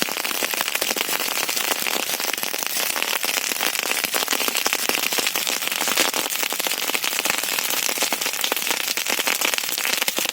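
Wood fire in a fireplace crackling steadily: a dense run of small sharp snaps over an even hiss.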